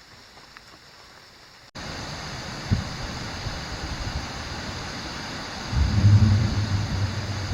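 Quiet room tone, then an abrupt cut to a steady outdoor rush of noise. A brief thud comes about a second after the cut, and a louder low rumble near the end.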